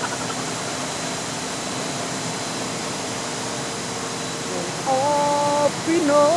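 Steady rushing noise of rooftop refrigeration condenser machinery, with a man humming a few notes from about five seconds in.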